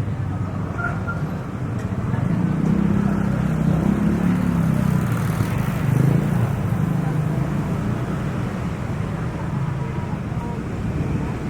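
Steady low rumble of motor vehicle noise, getting a little louder about two seconds in.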